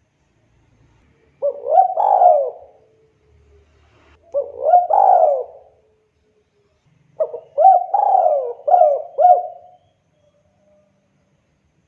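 Spotted dove cooing: three phrases, about a second in, near the middle and a longer one of several notes in the second half, each a run of short rising-and-falling coos with pauses between.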